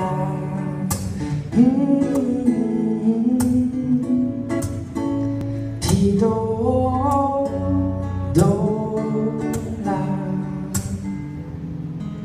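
Live solo acoustic guitar intro, strummed, with a wordless sung melody of long held notes that slide up into pitch, three phrases in all.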